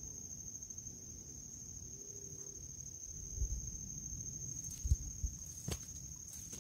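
An insect trilling steadily at a high pitch, cricket-like, with a few sharp knocks about five seconds in.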